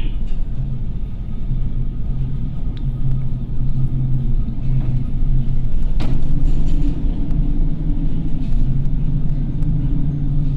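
Deep, steady rumble aboard an oil tanker driving into heavy seas, with a single sharp knock about six seconds in.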